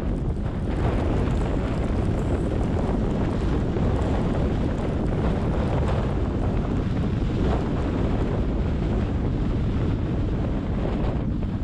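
Steady rushing wind noise buffeting the microphone, heaviest in the low end, with no break or change.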